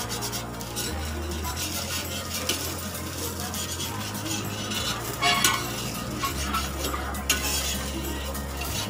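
Moong dal batter and oil sizzling on a hot iron tawa as a chilla fries, with a steel spatula scraping under its edge a few times to loosen it for flipping.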